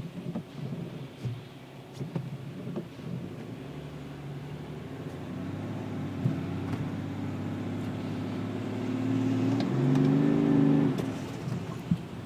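BMW E60 535d twin-turbo inline-six diesel at a cold start, with irregular rattling knocks in the first few seconds before it settles into a steady idle. About ten seconds in the revs rise briefly and then drop back, and a single sharp click comes near the end.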